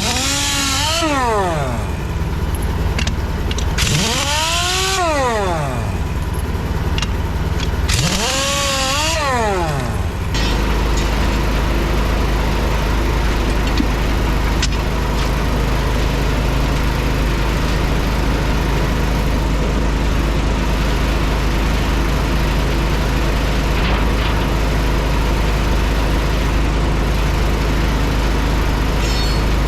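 Impact wrench spinning lug nuts off a semi-trailer wheel: three short runs, each rising and then falling in pitch with a rattling hiss over it. From about ten seconds in, a steady low machine hum takes over.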